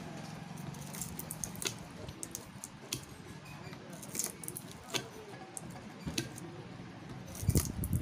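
A hand cutter snipping through the copper windings of a ceiling fan's stator. The cuts come as irregular sharp clicks and snaps, with a louder cluster near the end. The coils are being cut out because they have burnt out, so that the fan can be rewound.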